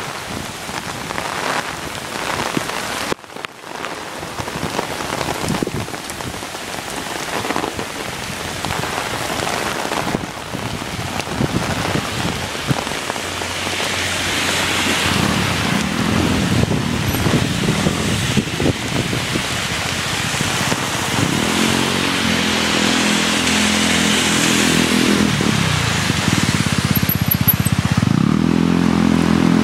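Heavy typhoon rain and wind pouring down steadily, growing louder. From about two-thirds of the way in, a vehicle engine hums through it as it passes.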